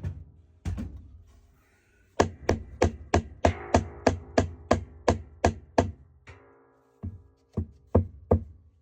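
Repeated sharp knocks on the seized wash plate of a Maytag Bravos top-load washer, struck to break it loose. Each knock leaves a short ringing. There is a quick, even run of about a dozen in the middle, with a few separate knocks before and after.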